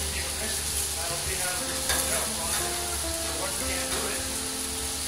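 Risotto rice sizzling in a hot frying pan while a spatula stirs and scrapes it, with a sharper scrape about two seconds in. Faint background music runs underneath.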